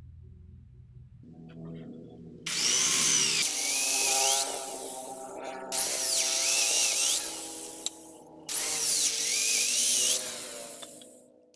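Electric hand drill spinning up and boring into round wooden branch slats three times, each bite a loud stretch with a high whine that bends in pitch, the motor running on between them and stopping at the end.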